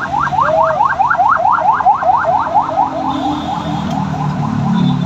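Electronic siren-style alarm sounding a rapid run of rising chirps, about six a second, that fades away three to four seconds in, over a low idling engine.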